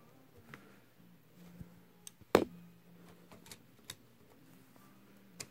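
Small metallic clicks and taps of a hand tool working at the tuning-drive shaft of a 1934 RCA 128 radio chassis, with one much louder sharp knock a little over two seconds in, over a faint steady low hum.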